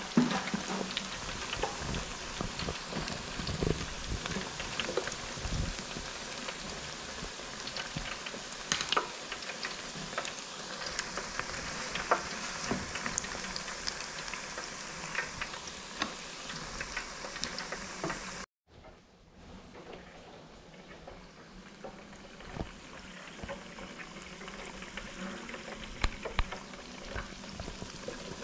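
Flour-battered chicken wings deep-frying in hot oil: a steady sizzle with scattered pops and crackles. About two-thirds of the way through it breaks off for an instant and comes back quieter, then slowly grows louder again.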